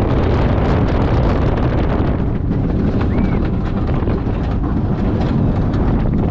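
Steel Eel, a Morgan steel hyper coaster, running at speed: wind rushing over the microphone over the rumble and rattle of the train's wheels on the rails. It is loud and steady, with many small clacks through it.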